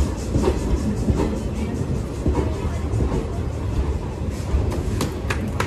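Passenger coaches of an arriving Indian Railways train rolling past along the platform: a steady rumble of wheels on the rails, with clicks as the wheels cross rail joints. There is a cluster of sharper clicks about five seconds in.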